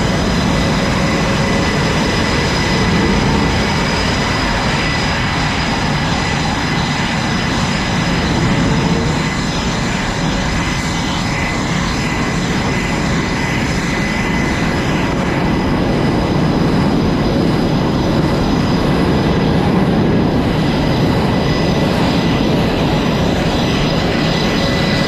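Jet engines running on a carrier flight deck: a loud, steady noise with several thin, high, whining tones held over it.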